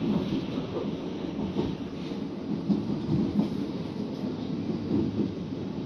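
Passenger train running along the track, heard from inside the carriage by the door: a steady rumble of wheels on rail, with occasional light knocks as the wheels cross rail joints or points.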